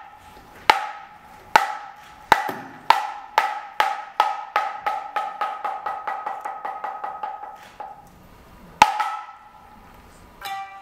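Hyoshigi wooden clappers struck in the traditional opening pattern: single sharp, ringing clacks about a second apart that speed up into a fast roll and fade out about eight seconds in, then one final loud clack near nine seconds. Plucked shamisen notes begin near the end.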